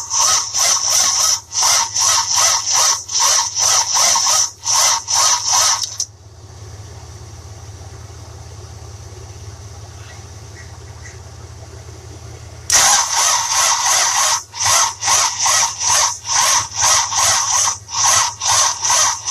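1966 Buick Riviera's 425 Nailhead V8 being cranked over by its starter, turning slowly in an even chug of about two to three beats a second without firing: the really slow crank of a no-start. The cranking stops about six seconds in, leaving a steady low hum, and starts again about six seconds later.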